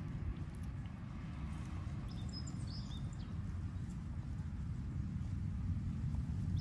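Outdoor background: a steady low rumble, with a small bird chirping a few times about two to three seconds in.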